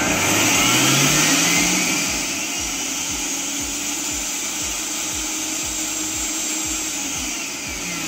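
Oster Xpert blender motor running on speed 1 with its speed sensor disconnected: it spins up with a rising whine in the first second or so, then runs steadily. Without the sensor the board cannot tell how fast the motor is turning, so it runs at one fixed speed whatever speed is selected.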